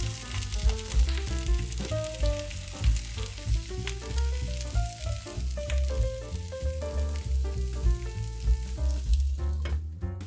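Food frying in a pan with a steady sizzle that drops away near the end, under background music with a strong bass line.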